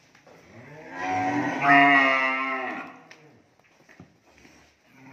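A cow mooing: one long moo that swells about a second in, rises and then falls in pitch, and fades out about three seconds in. Another moo starts just at the end.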